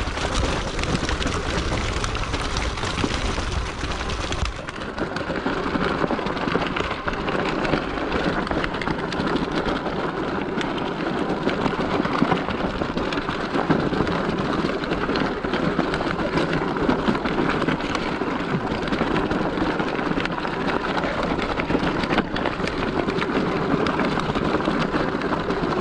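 Knobby tyres of a Sur Ron X electric dirt bike crunching and rattling over loose rock on a bumpy downhill, with the bike's suspension working. A heavy low rumble runs under it for the first four seconds or so and cuts off abruptly.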